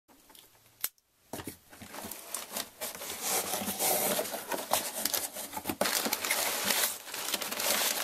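A shipping package being opened by hand: a sharp click about a second in, then continuous tearing and crinkling of the packaging.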